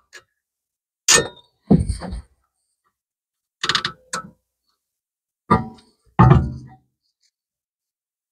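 Short metal knocks and clinks from tools and fixings against the rear brake caliper and its electric parking-brake motor as the motor's screws are fitted. They come in three pairs about two seconds apart, some with a brief ring.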